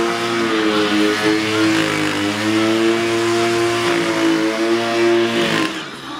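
Trials motorcycle engine held at steady, fairly high revs, its pitch dipping slightly a couple of times as the rider balances and turns the bike; the engine note falls away shortly before the end.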